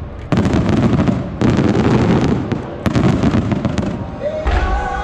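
Aerial fireworks shells bursting in rapid salvos, each a dense burst of crackles and bangs, three times. Near the end the bursts give way to music.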